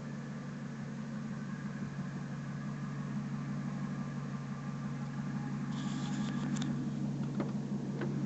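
1999 Ford F250 Super Duty's 5.4 Triton V8 idling steadily, with a short hiss about six seconds in and a couple of faint clicks near the end.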